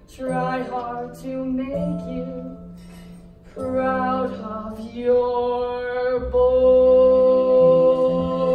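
Young performers singing a musical-theatre number with accompaniment: a few short sung phrases, then a long held note from about five seconds in.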